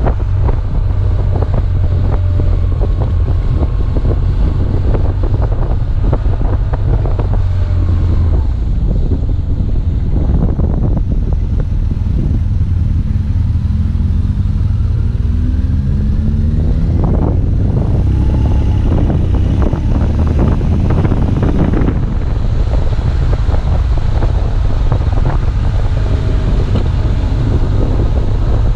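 Wind buffeting a helmet-mounted camera's microphone over a BMW R1200GS boxer twin running on a mountain descent; the engine note climbs a few times near the middle, around a hairpin.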